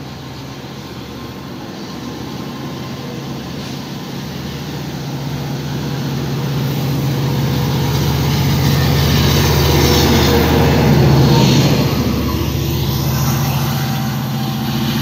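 Diesel locomotive engine running with a low, steady drone that grows louder as an LIRR DE30AC approaches, loudest about eleven seconds in. Under it, the rolling rumble of bilevel C3 coaches on the track.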